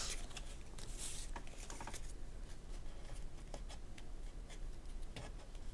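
Game cards being handled: faint rustling and a few light clicks as a stack of cards is flipped through and set down by hand.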